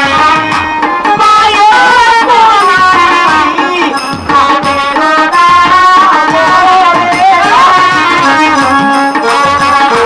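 Instrumental folk music of a Bengali jatra band: a melody that bends and glides in pitch, over a steady rhythm of hand-drum strokes.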